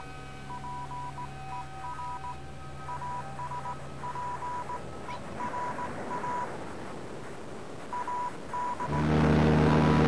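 Electronic beeps: a single high tone switching on and off in an uneven pattern of short and long beeps, over steady humming tones. About nine seconds in, a loud, low droning sound with several pitches comes in.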